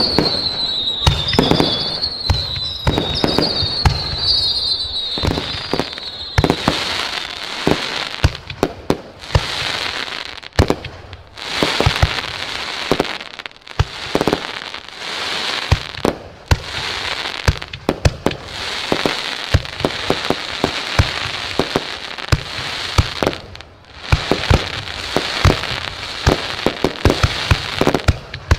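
Fireworks going off: sharp bangs throughout, with a run of short whistles in the first few seconds, then dense crackling mixed with many bangs.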